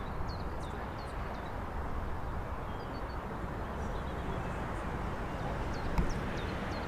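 Small birds chirping over and over in short, high, falling notes above a steady low rumble, with a single sharp click about six seconds in.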